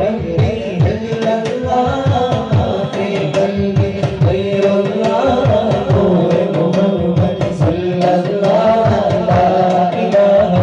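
A man singing a madh (Islamic devotional song) live into a microphone, amplified through a sound system, over a steady drum beat.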